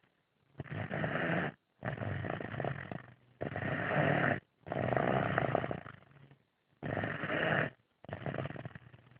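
A four-year-old child snoring loudly in sleep: a run of about six noisy snoring breaths, each roughly a second long, with short pauses between them.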